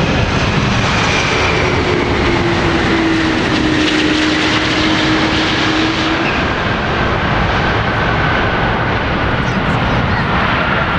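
Boeing 777-200's turbofan engines in reverse thrust during the landing rollout: a loud, steady jet roar with a whining tone slowly falling in pitch.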